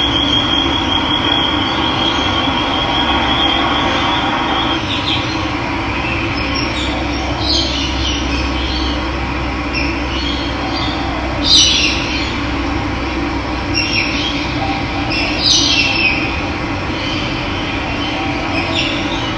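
Steady rush of running water with wild birds calling over it: a thin, even trill for the first few seconds, then short high chirps every second or two, the loudest about twelve seconds in.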